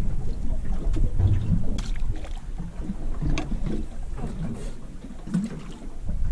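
Wind rumbling on the microphone aboard a small boat on open water, with water moving against the hull and scattered light clicks and knocks.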